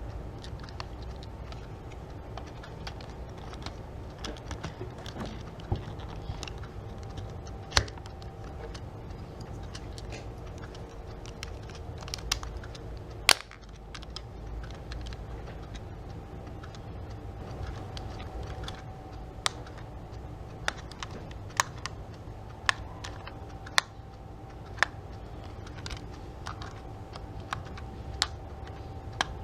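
Irregular light clicks and taps, spaced unevenly, one sharper than the rest about halfway through, over a faint steady hum.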